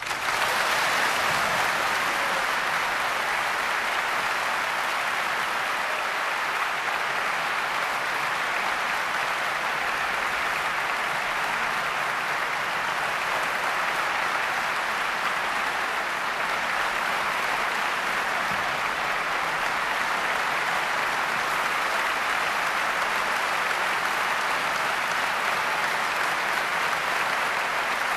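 Large audience applauding in a concert hall: dense, steady clapping that breaks out abruptly and holds at an even level.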